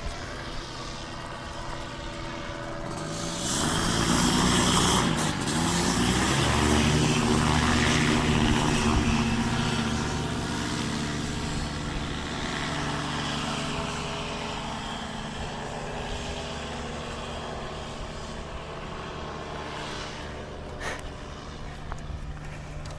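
Paramotor engine and propeller passing in flight. The engine note swells about three seconds in and dips in pitch around five seconds, then holds steady before slowly fading over the second half.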